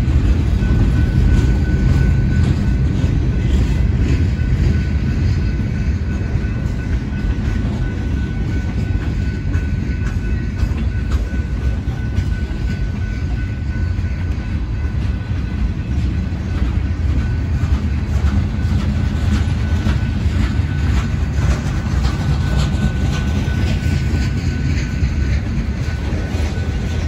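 Freight train cars (boxcars, tank cars and covered hoppers) rolling past with a heavy steady rumble and wheels clicking over the rail joints. A thin, steady high-pitched squeal runs under the rumble.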